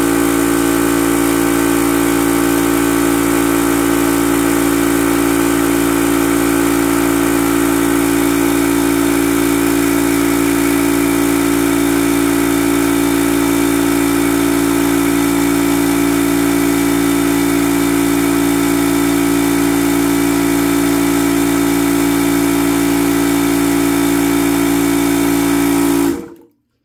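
Yong Heng high-pressure (HPA/PCP) air compressor running steadily at one even pitch while filling an aluminum air tank toward 3,000 PSI. It cuts off suddenly near the end.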